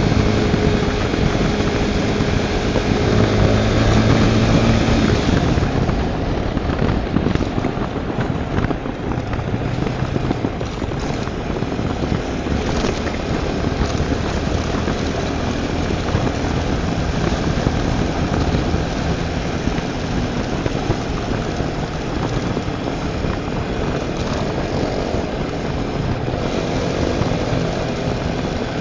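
Tornado 250 motorcycle's single-cylinder engine running under way, mixed with steady wind noise on the microphone. The engine note slides in pitch during the first five seconds, then sits lower under the wind.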